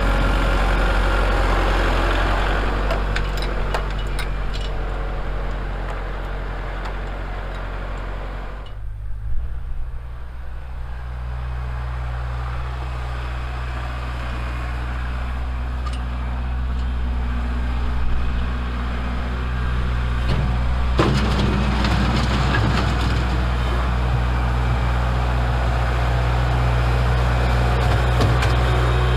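Kubota L4701 tractor's diesel engine running steadily. Its note changes about a third of the way in, with a few sharp knocks at that point, and there is a spell of clattering about two-thirds through.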